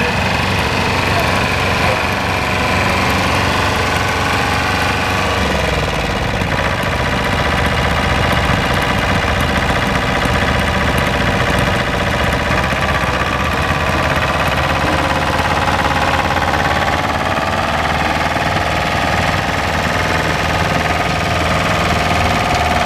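Engine of a two-wheel walking tractor running steadily with a fast, even beat as its rear rotary tiller churns through soil. About five seconds in the low end grows heavier.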